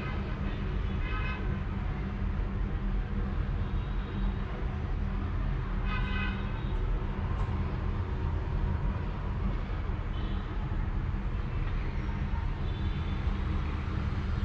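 Steady low rumble throughout, with two short horn-like toots, one about a second in and one about six seconds in.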